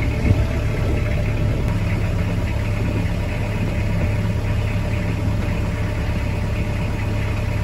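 Newly installed marine diesel engine running steadily.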